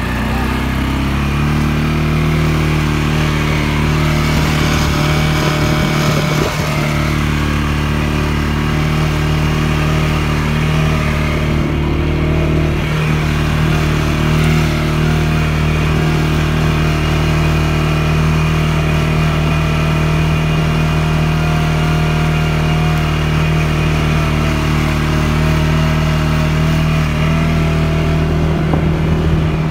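CF Moto CForce 550 ATV's single-cylinder engine running under load while pulling through deep snow. The pitch climbs a little in the first second or two, then holds nearly steady.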